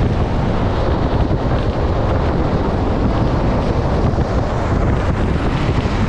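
Steady wind rushing over the microphone of a camera on a moving vehicle, with road noise underneath.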